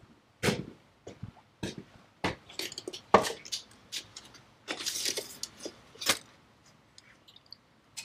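Small metal tools or parts being handled: a string of separate sharp clicks, knocks and clinks, with a short rattling scrape about five seconds in.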